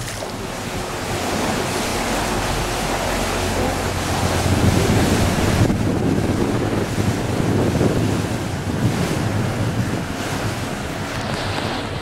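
Wind buffeting the microphone over the wash of sea water, with a low steady drone of an excursion boat's engine underneath; a little louder in the middle.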